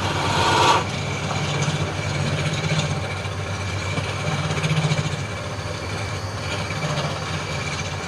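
Wood lathe motor running steadily with a low hum and a thin high whine, with a louder noisy burst in the first second.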